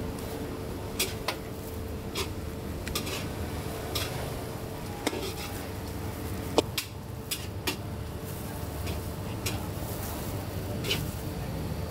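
Metal spatula scraping and clanking irregularly against a giant pan as a large batch of goat fried rice is stir-fried, over a steady low background hiss.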